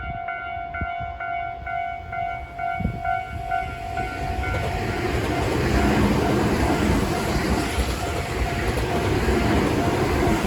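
Tobu Railway level-crossing warning bell, its standard electronic ding repeating a little under twice a second. About four and a half seconds in, a passing train grows loud and drowns it, with its wheels rumbling and clattering on the rails.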